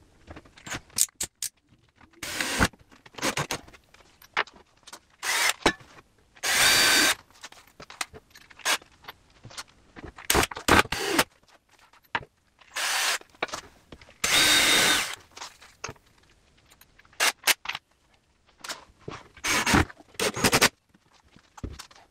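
Handheld power drill running in about eight short bursts, the longest about a second, with small clicks and knocks of handling between them.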